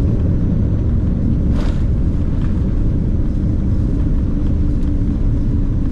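Steady low rumble of aircraft cabin noise, with a faint steady hum, and a brief hiss about a second and a half in.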